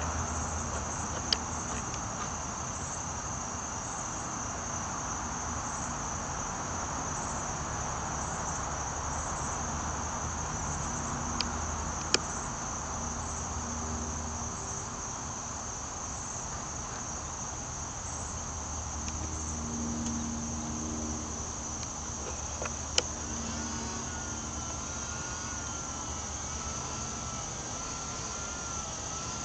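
Steady high-pitched chirring of insects such as crickets over a low hum, with a few single sharp clicks. Near the end a faint wavering whine joins in.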